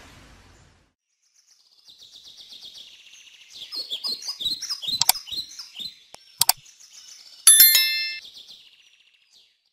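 Birds chirping and twittering, joined by two sharp clicks about five and six and a half seconds in. Near the end a loud, bright bell-like ding rings out for about a second: the click-and-ding sound effect of a subscribe-button animation.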